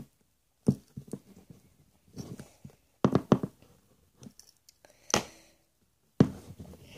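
Scattered clicks and knocks of a cheap plastic fidget spinner being handled and prised at while its bearings are worked out of the frame.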